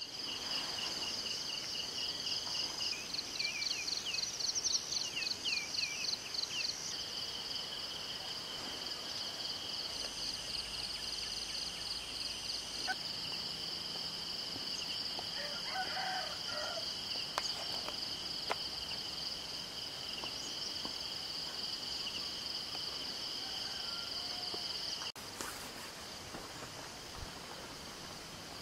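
Steady high-pitched insect chorus trilling in rapid pulses. A few bird chirps come over it in the first several seconds.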